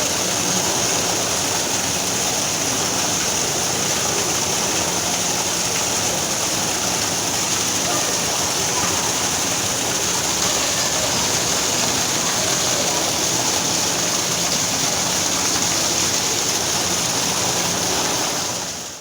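Waterfall rushing with a loud, steady hiss of falling water, cutting off abruptly at the very end.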